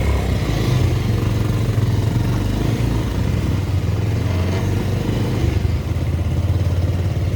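Motorcycle engine running steadily, with a loud, constant low drone.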